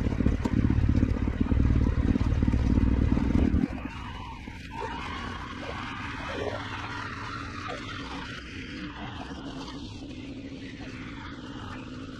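Honda CRF250L's single-cylinder engine running loudly, dropping abruptly to a much quieter, steady running sound about three and a half seconds in.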